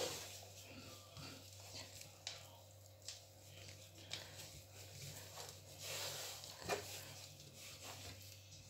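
Wooden spoon scraping and pressing a thick, sticky peanut brittle mixture around a nonstick frying pan, with irregular scrapes and a few sharp taps of the spoon against the pan.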